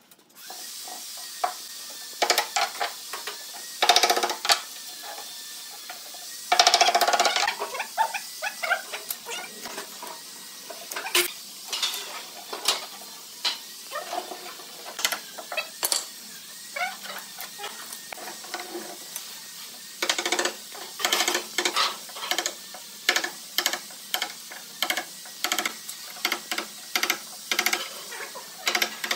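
A wooden mallet knocking on a chisel, chipping the mould strip and hardened epoxy away from the edge of a resin tabletop, with scraping and rustling as the strip is pried and peeled off. The knocks come fast in the second half, about two a second, with longer scraping bursts earlier.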